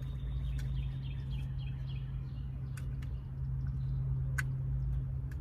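Steady low hum under a few small clicks as a wiring connector and a plastic steering-wheel trim piece are handled. One sharper click comes a little past four seconds in.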